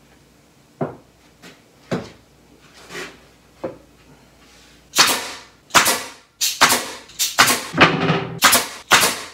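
Pneumatic nail gun firing nails into 3/4-inch plywood panels: a run of loud, sharp shots about two a second through the second half, after a few lighter knocks of plywood pieces being set in place.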